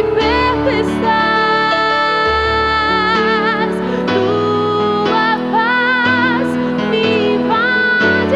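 A woman sings a slow Portuguese worship song, holding long notes with a wide vibrato, over sustained instrumental accompaniment.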